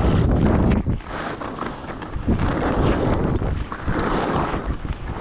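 Wind buffeting the microphone of a camera on a downhill skier, rising and falling every second or so, with the hiss and scrape of skis sliding over snow beneath it.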